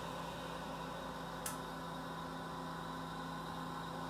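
Steady hum with an even hiss behind it from the lampworking bench, where the small glass-working torch is burning. One sharp little tick about a second and a half in.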